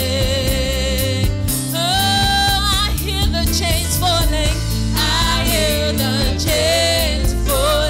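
Live gospel worship song: a woman's high voice sings with wide vibrato over keyboard, bass and a drum kit.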